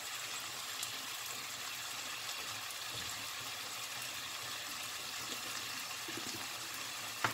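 Ground beef picadillo frying in a pan, a steady soft sizzle.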